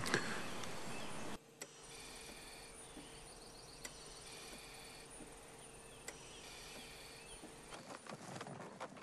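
Faint woodland ambience: short high chirps and calls from birds or insects over a quiet background. About a second and a half in, the louder outdoor background cuts off abruptly. Near the end, soft rustling clicks build up.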